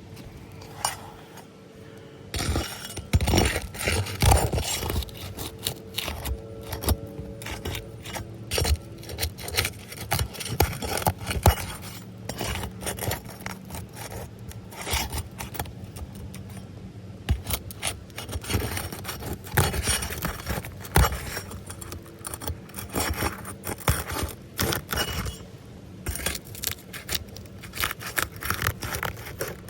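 Roof shingles being worked by hand and tool in a repair attempt: irregular scraping and rubbing with many sharp clicks and knocks, starting about two seconds in.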